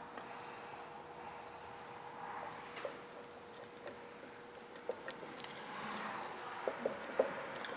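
Light scattered metal clicks and taps as the brake lathe's gearbox housing halves and a hand tool are worked together, more of them toward the end, over a faint steady high-pitched whine and low hum.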